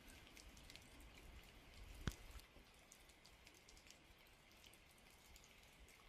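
Faint light rain in the forest: scattered drops falling and dripping, with one sharper tap about two seconds in.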